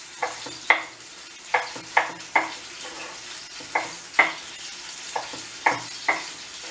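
Kitchen knife chopping tomatoes into cubes on a wooden cutting board: about ten sharp, unevenly spaced strikes. Under them, the steady sizzle of green peppers frying in a pan.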